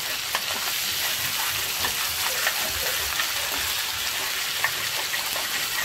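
Ground masala paste sizzling in hot ghee in a nonstick kadai, stirred with a silicone spatula. A steady hiss with small crackles and pops.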